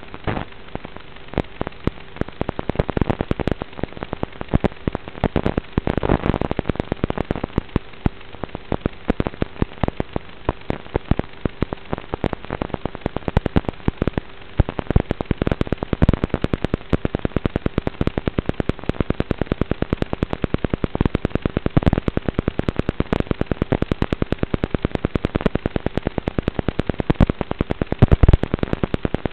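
Dense crackling static with rapid irregular clicks and pops and a faint steady tone underneath: the noisy audio channel of an analog FPV video link.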